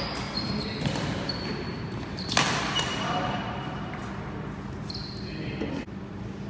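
Badminton rally on a wooden sports-hall floor: sharp racket strikes on the shuttlecock, the loudest about two and a half seconds in, with short high squeaks of court shoes and footsteps in between, in an echoing hall.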